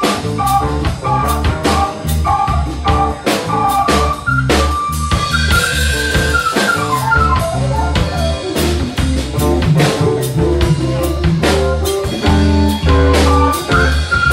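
Live band playing an instrumental passage with no singing: drum kit keeping a steady beat under bass guitar, guitar and keyboard, with a melody line on top.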